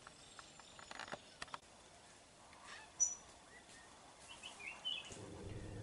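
Faint forest ambience with distant wild birds: a few soft clicks about a second in, one short high chirp about three seconds in, and a few faint bird calls near the end.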